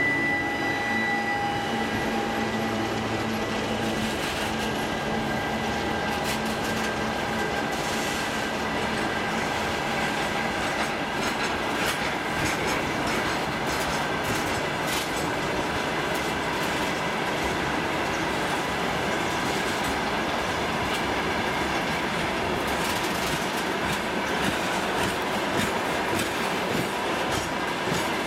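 Freight train of hopper cars rolling past at speed: a steady rumble of steel wheels on rail with irregular clicks over the rail joints. In the first couple of seconds the engine hum of the departing 2TE116 diesel locomotive fades out under the wagon noise.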